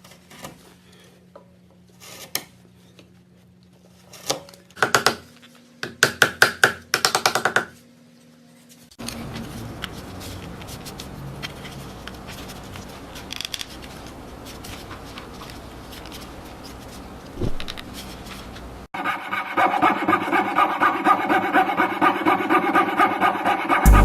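Wood being worked with tools. First come scattered scraping strokes and a quick run of them, then from about nine seconds a steady rasping noise. Near the end it changes abruptly to a louder, busier sound.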